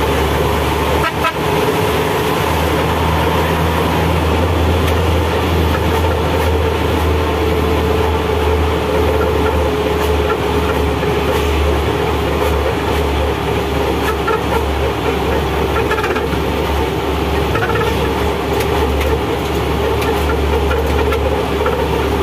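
Coal truck's diesel engine running steadily under way, heard from inside the cab as a loud, even drone with road noise.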